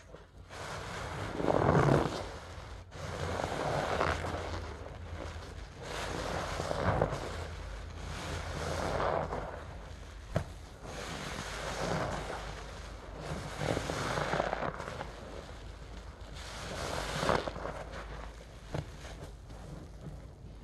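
A soapy sponge squeezed and released in a basin of thick suds: wet squelching and foam crackle swelling and fading about every two to three seconds.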